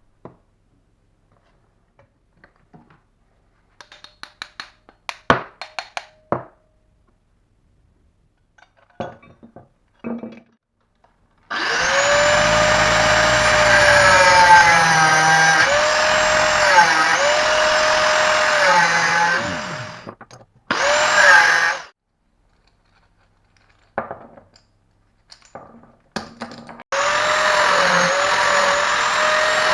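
A small power tool's motor running in three bursts, a steady whine whose pitch dips briefly several times as it works. Light clicks and taps come before it.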